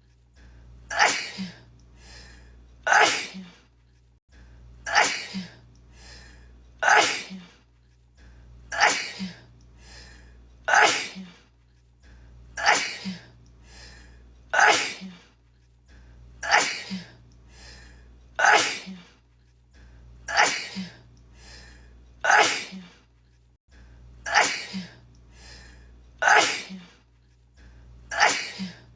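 A woman sneezing over and over, the same sneeze looped: about fifteen loud sneezes at an even pace of one every two seconds or so, each with a quieter lead-in just before it.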